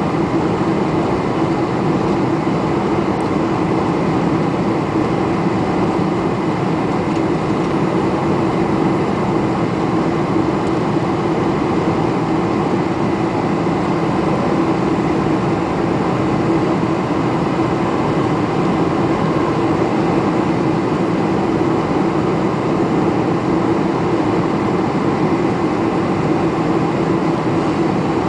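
Cabin noise of a Boeing 747-400 Combi in flight: the steady rush of engines and airflow with a constant low hum, unchanging throughout.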